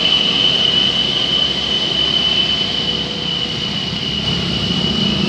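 Roadside traffic noise, with a steady high-pitched whine held on one pitch throughout.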